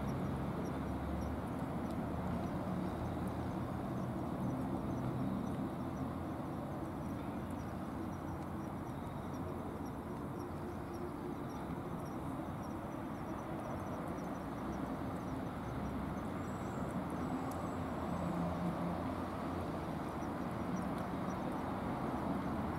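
A cat eating dry kibble from a plastic tray, over a steady low rumble of background noise.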